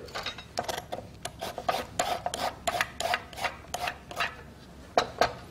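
Vegetable peeler scraping down a raw carrot in a quick run of short rasping strokes, about two to three a second.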